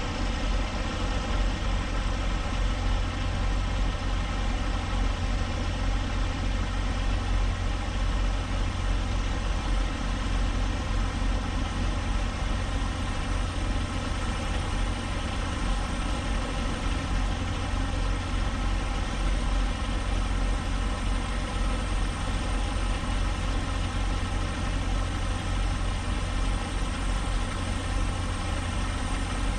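Semi truck's diesel engine running steadily at a low speed, a constant low drone with no change in pitch.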